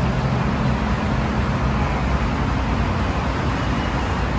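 Steady city road traffic: the running engines and tyre noise of passing vehicles, with a low engine hum that fades about a second in.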